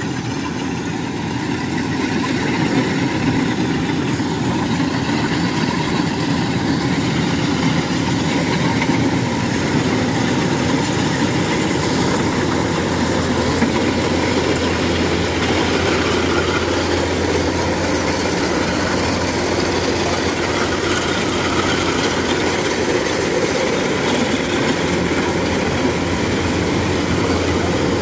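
Kubota DC-105X rice combine harvester running steadily as it cuts rice, a dense continuous machine noise that gets a little louder about two seconds in.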